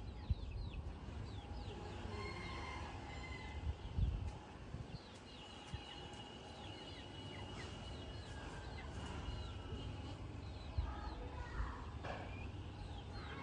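A chicken clucking, with a few calls near the end, among many short high chirps from birds and a low rumble underneath.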